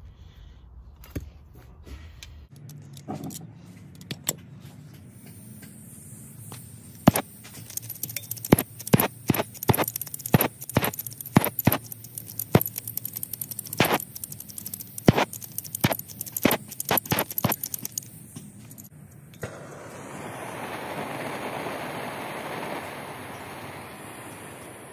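Flint spark striker clicked and scraped again and again, about twenty times, at the nozzle of a hand-held Bernzomatic propane torch, with gas hissing faintly from the open valve. At about twenty seconds in the torch lights and burns with a steady hiss.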